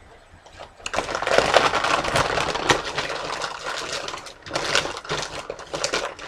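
Crisp crunching and crackling of fire roasted veggie tortilla chips, starting about a second in. It is densest over the next few seconds, then thins to scattered cracks.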